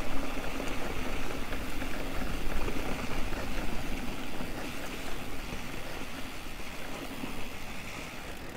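Electric mountain bike rolling over a loose, sandy dirt road: a steady rumble and hiss of knobby tyres on sand and gravel mixed with wind rushing over the camera microphone, easing a little toward the end.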